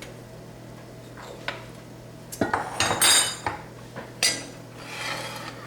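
A utensil knocking and scraping against a cooking pan, in a run of clatters and short scrapes through the middle, over a steady low hum.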